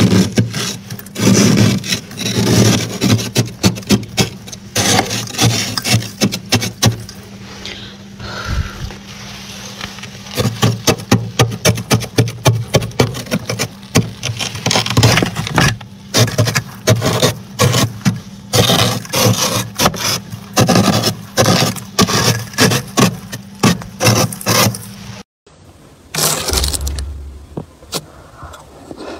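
Metal spoon scraping built-up frost off a freezer's walls in quick, repeated rasping strokes, a few a second. The scraping breaks off suddenly near the end.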